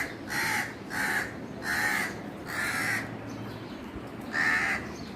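A crow cawing repeatedly: about six short, harsh caws, with a pause of about a second and a half before the last one.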